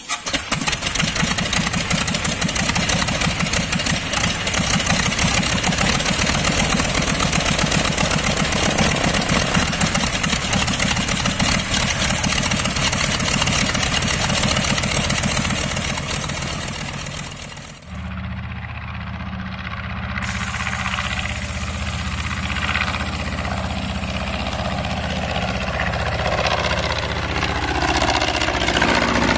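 Polikarpov Po-2 biplane's five-cylinder M-11 radial engine and propeller running close by with a fast, even firing beat. About two-thirds of the way through, the sound changes abruptly to the biplane flying past overhead, its engine note gliding in pitch as it passes.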